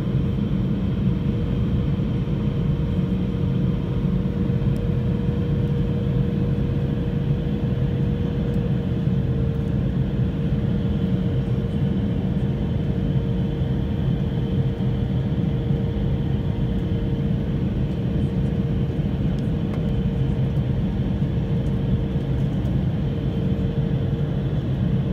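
Airliner cabin noise in flight: the jet engines and airflow make a steady low drone, with a constant hum from the engines laid over it.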